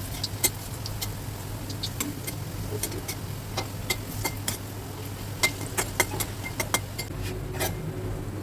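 A metal spatula clicking and scraping against a karahi in irregular taps as lentil fritters are turned over in shallow frying oil, over a faint sizzle.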